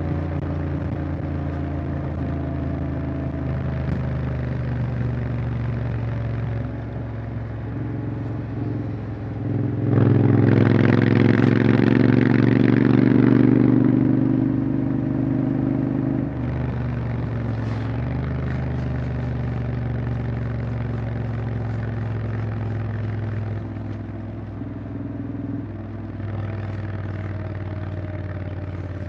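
Honda X-ADV 750's parallel-twin engine running on the move, its note stepping up and down a few times with throttle. About ten seconds in it gets louder and rougher for about four seconds before settling back.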